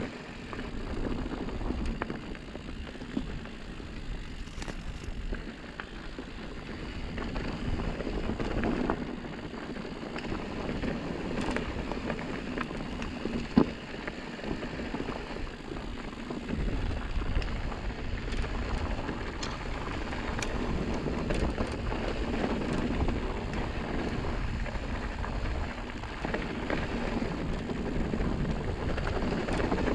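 Mountain bike rolling down dry, rocky dirt singletrack: a steady tyre rumble on dirt and gravel with wind on the microphone, small rattles and clicks over the bumps, and one sharp knock about halfway through.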